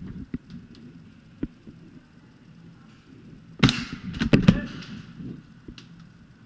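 A single airsoft gun shot, a sharp pop about three and a half seconds in, followed by a quick run of clicks and knocks, over scattered small clicks and gear rustle.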